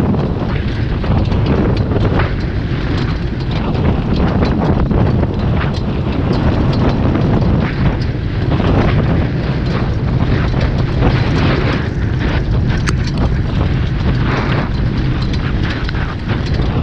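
Wind buffeting the microphone over the steady rumble of a horse-drawn training cart rolling along a dirt track behind a standardbred horse, with short clicks and knocks from wheels and hooves mixed in.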